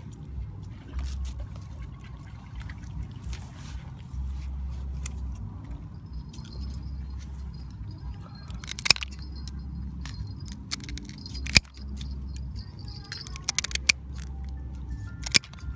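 Kitchen scissors snipping through a blue swimmer crab's shell: a few sharp, crunching clicks, the loudest about 9 and 11.5 seconds in, over a steady low rumble.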